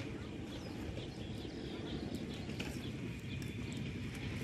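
Small birds chirping over a steady low rumble, with a few sharp clicks.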